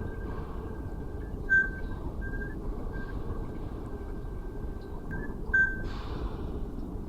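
Boat engines running as a steady low rumble, with a thin high whistle held over it that jumps louder in short chirps, the loudest about a second and a half and five and a half seconds in.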